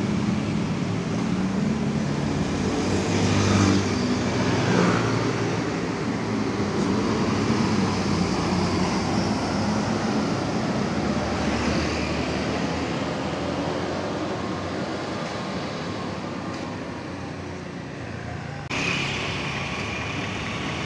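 A large bus's diesel engine pulling away and passing close, loudest in the first few seconds and then fading into the general din of road traffic. The traffic sound changes abruptly near the end.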